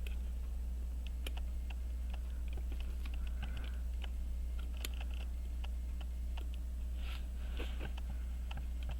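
Small, irregular clicks and taps of tools and fingers on the parts of an Elgin 18-size full-plate pocket watch movement as the wheel-train pivots are worked into their holes, with a few brief scrapes. A steady low hum runs underneath throughout.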